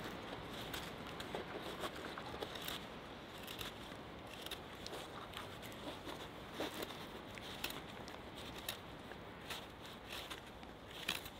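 Long-bladed leuku-style knife shaving fine curls off a small wooden stick: a run of faint, irregular scraping cuts.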